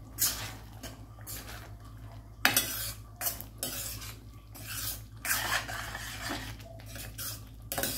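A metal spoon stirring a thick potato curry in a stainless steel kadai, scraping and knocking against the pan in irregular strokes.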